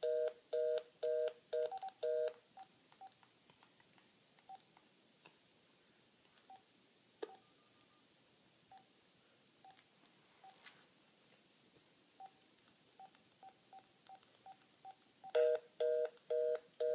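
A mobile phone's two-tone busy signal beeping fast, about twice a second, for the first couple of seconds. Then come scattered short single keypad beeps as its buttons are pressed, and the fast busy signal starts again near the end.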